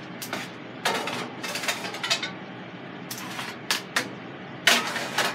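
Metal cookware clattering: a string of irregular clanks and knocks, the loudest near the end.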